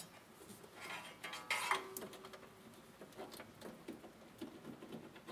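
Hands handling the jukebox's metal amplifier unit and its cable plugs: scattered light clicks, clinks and rattles, with a louder cluster of scrapes about one and a half to two seconds in.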